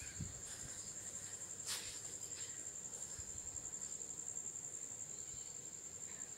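A cricket trilling: one steady high-pitched note that pulses quickly and evenly. There is a short click a little under two seconds in.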